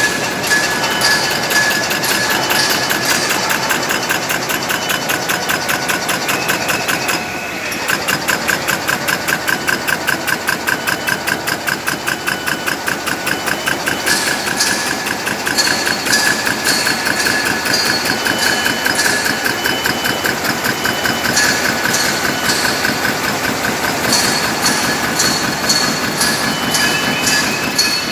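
Polystar RH wicketer bag-making machine running, with a fast, even clatter from its repeating cycle. The rhythm briefly slackens about seven seconds in.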